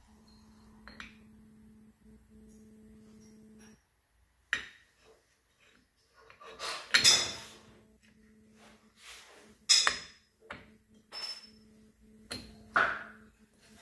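Scattered metal clinks and knocks as clutch parts are handled and fitted onto a Mondial Drift 250 motorcycle engine's clutch hub, the loudest a little past the middle and near the end. A faint steady hum runs underneath.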